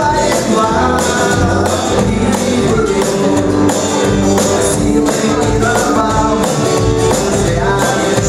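A live band playing a rock song, with electric bass guitar, guitar and drums keeping a steady beat.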